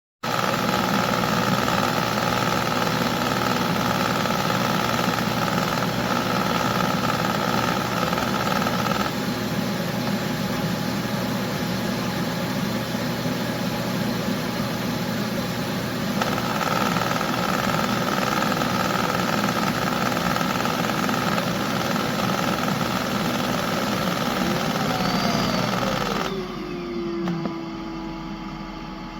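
The eufy Omni C20 robot vacuum's suction motor runs loud and steady with a high whine. Near the end it winds down with a falling pitch, leaving a lower steady hum.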